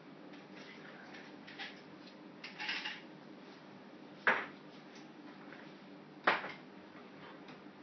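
An ice cube being pushed around a tile floor by a puppy: a few light scrapes and clicks, then two sharp clacks about two seconds apart.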